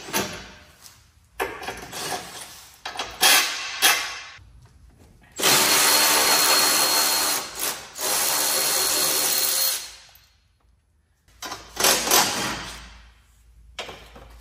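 Cordless power tool with a socket, run twice for about two seconds each, backing out the strut-brace bolts over the engine. Metal clanks and knocks from handling the tool and brace come before and after.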